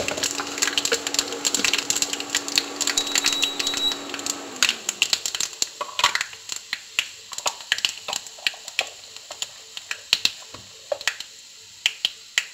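Mustard seeds and fennel seeds crackling and popping in hot mustard oil for a tadka. The pops are dense at first and thin to scattered pops later. A steady low hum stops with a falling pitch about five seconds in.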